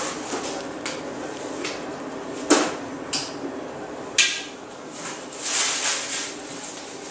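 A few sharp clacks and knocks of items being handled at a surgical prep tray, the loudest two about two and a half and four seconds in, then a brief rustle near the end, over a steady room hum.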